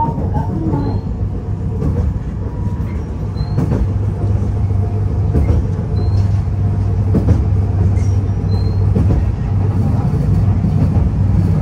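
Inside a Fukui Railway F1000 low-floor tram running along the line: a steady low hum with wheel-on-rail rumble and a few short clicks from the track.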